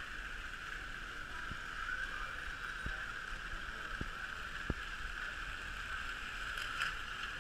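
Steady high whine from running model trains, with faint irregular clicks about once a second.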